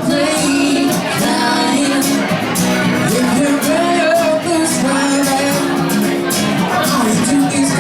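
Live band playing an instrumental passage of a pop-funk song, with a steady drum beat under sustained pitched chords and melody lines.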